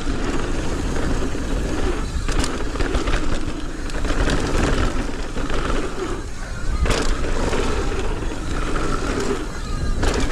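Mountain bike rolling fast down a dirt trail: tyre roar and wind rumble on the rider-mounted camera, with a few brief lulls and sharp knocks from the bike.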